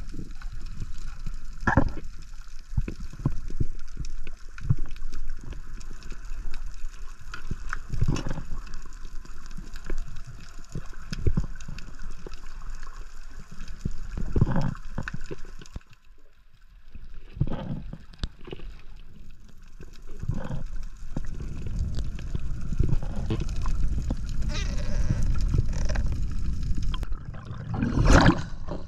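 Underwater water sounds: gurgling and bubbling with many scattered clicks and knocks, dipping quieter a little past the middle and with a louder burst near the end.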